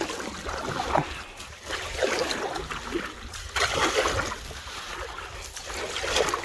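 Canoe paddle strokes: the blade swishes and splashes through the water with each pull, and water drips off it between strokes, which come about a second or two apart.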